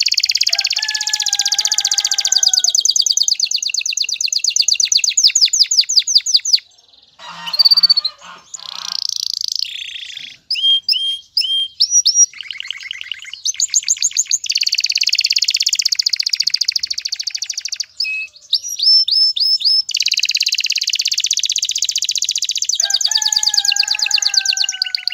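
Male domestic canary singing in breeding condition: long runs of rapid high trills, broken by a short pause about seven seconds in, then changing through other rolls and quick whistled notes before the fast trills return.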